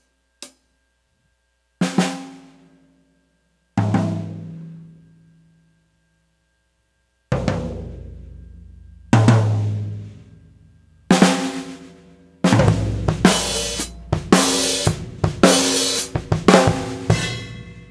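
Acoustic drum kit with unmuffled drums, picked up by a single condenser microphone above the kit. It starts with a few soft, widely spaced single hits, each drum ringing out at its own pitch, then builds into a louder, busier run of drums and cymbals over the last third.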